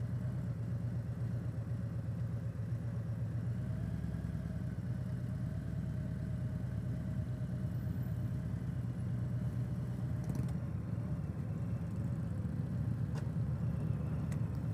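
Harley-Davidson Road Glide Limited's Milwaukee-Eight V-twin engine idling steadily while the bike rolls slowly in a queue.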